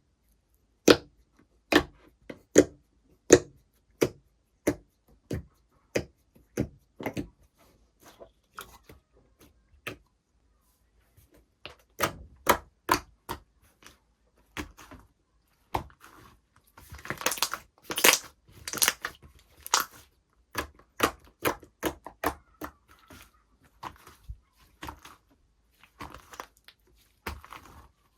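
Slime being pressed and stretched by hand, giving sharp clicking pops about once a second at first. After about sixteen seconds come denser runs of quick clicks and squishing.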